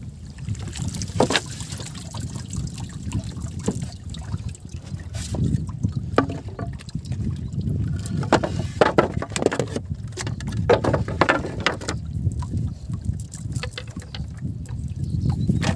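A cast net being hauled out of the river and handled on a wooden boat: water trickling off the mesh, then scattered knocks and clatters as the wet net and fish are worked against the deck, over a steady low rumble.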